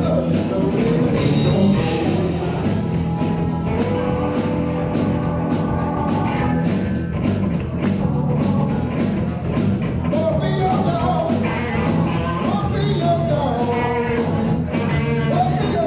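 Live blues-rock band playing loudly. Drums keep a steady beat under electric guitars and bass, with a bending melody line on top.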